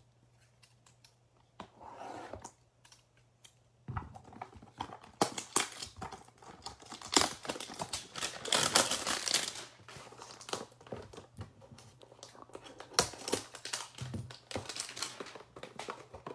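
A cardboard trading-card hanger box torn open by hand and its sealed pack pulled out, with crinkling and rustling of the wrapper and card stock. Quiet for the first few seconds, then a dense, irregular run of tearing, crinkling and tapping, loudest about halfway through.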